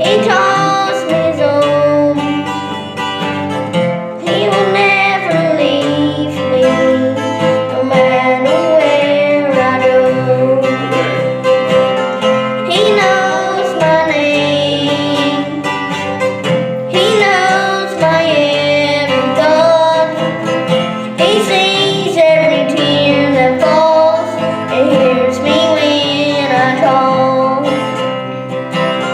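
Music: guitar accompaniment with a singing voice.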